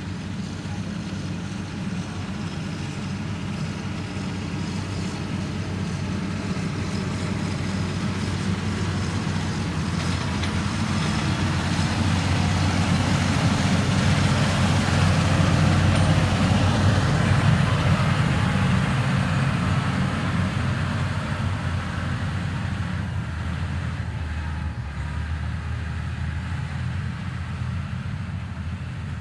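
Diesel engine of a heavy construction machine running steadily, growing louder toward the middle and then fading again.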